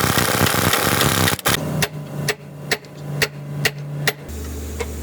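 A burst of harsh continuous noise for about a second and a half, then a run of about seven sharp hammer strikes on metal, roughly two a second, as gearbox parts are worked on.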